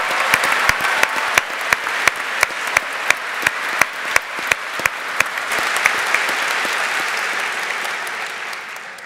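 A large theatre audience applauding, with single sharp claps standing out close by. The applause dies away near the end.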